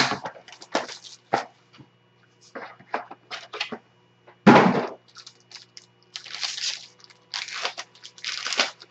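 Plastic shrink wrap and a foil card-pack wrapper being torn and crinkled by hand as a sealed trading-card box is opened. There is a louder thump about four and a half seconds in, and a run of crinkling near the end.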